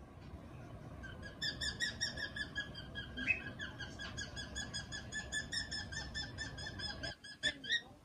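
Female cockatiel chattering: a rapid, steady string of short repeated chirps from about a second in, with two louder calls near the end. Contented chatter, which the owner takes as a sign of her good mood.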